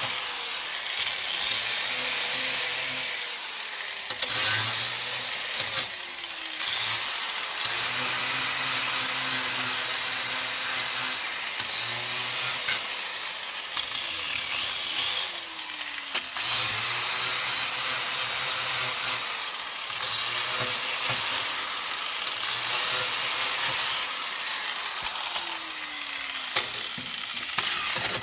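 Porter-Cable angle grinder with an abrasive disc grinding rust off a metal mower deck, in long passes with short breaks; its pitch sags and recovers as the disc is pressed on and eased off. It stops right at the end.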